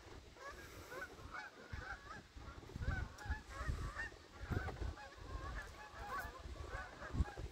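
A flock of birds calling continuously, many short overlapping calls at once, with irregular low rumbling thumps underneath.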